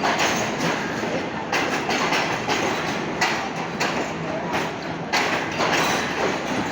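A train moving on the rails: a steady rumble broken by knocks about every second or so.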